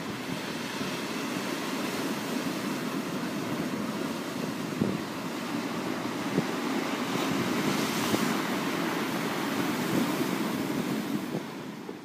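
Ocean surf on a beach: a steady rush of breaking and washing waves, with a brighter swell of hiss about eight seconds in, starting to fade near the end.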